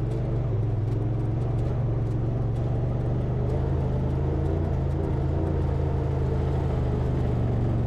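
Honda Pioneer side-by-side's engine running steadily at cruising speed, a constant low drone.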